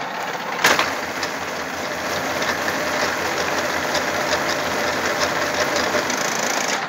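Metal milling machine running, with a sharp clunk about a second in; then its table drive runs the table back with a low pulsing hum and rapid light ticking, which stops shortly before the end.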